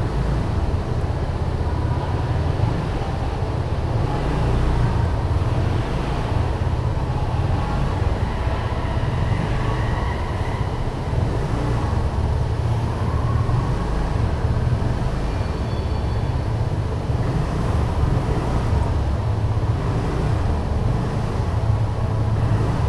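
Steady low rumble of vehicle traffic in an underground parking basement, without clear single events.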